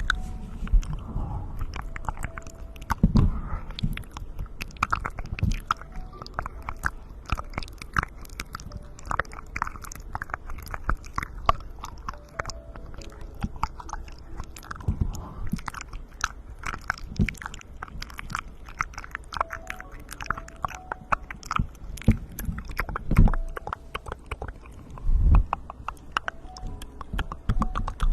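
Close-miked ASMR mouth sounds: a dense, irregular run of wet lip and tongue clicks and smacks, with a few louder low thumps.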